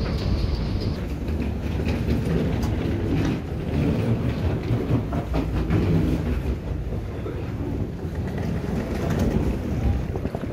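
Wheeled suitcases rattling and footsteps of a line of walking passengers, over a steady low rumble, with many small clicks.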